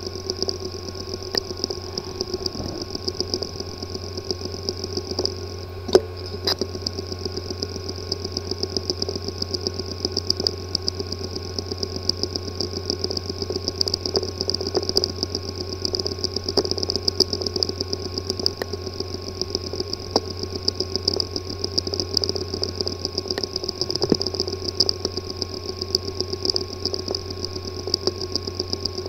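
Hard disk drive with a physically damaged disk assembly, running with a steady mechanical buzz and rapid fine ticking. There is an occasional sharp click, the loudest about six seconds in.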